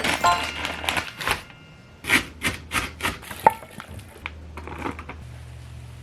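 Kitchen food-prep sounds: an irregular run of sharp knocks and clicks, thickest in the first second and a half and then more spaced, over a low steady hum.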